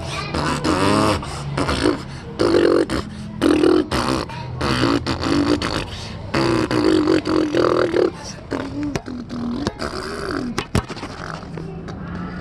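A person's voice making beatbox-like vocal noises and growls in short, irregular bursts.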